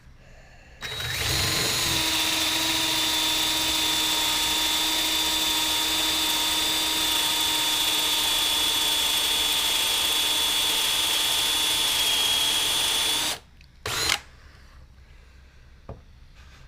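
Power drill with a freshly sharpened bit boring a hole into aspen wood, running at a steady pitch for about twelve seconds before stopping, then a brief second burst.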